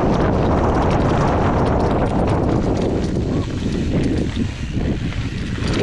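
Hardtail mountain bike riding down a damp dirt trail: tyres rolling and crunching over dirt and stones, with a steady rapid clatter from the bike over the bumps.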